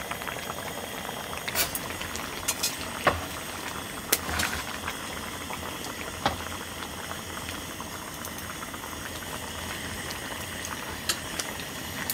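Pot of pork back-rib kimchi stew bubbling and hissing steadily as it heats, with a few short sharp clicks now and then.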